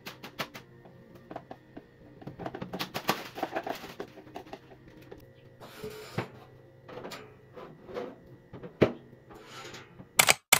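Scattered light clicks, taps and small knocks of kitchen things being handled, with some light rustling in between.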